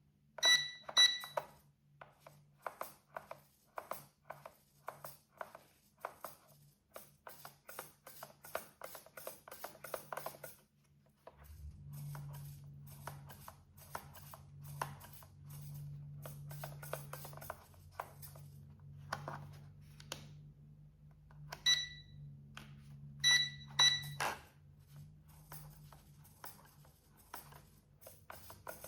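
Short electronic beeps, two near the start and three more close together in the last third, among frequent light clicks. A low steady hum sets in about halfway through.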